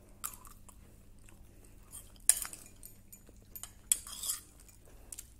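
A few light clinks and scrapes of tableware at a dining table, the loudest about two seconds in and another cluster around four seconds in.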